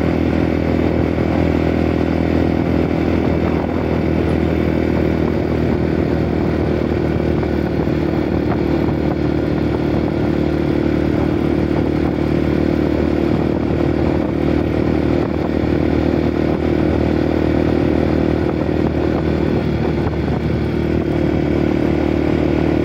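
Motorcycle engine running steadily at an even cruising speed, with noise from the ride over it.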